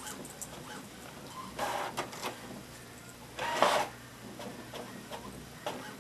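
A Boston terrier moving about at a computer desk: two short rustling bursts, about one and a half and three and a half seconds in, with faint small knocks between them.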